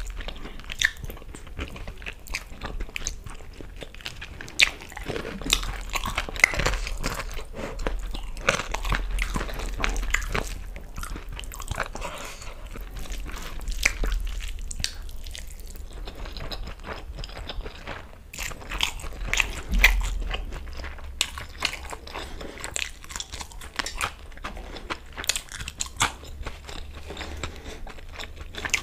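Close-miked eating sounds of someone chewing and biting mouthfuls of chicken curry and rice, wet mouth clicks and smacks, with some crunchy bites.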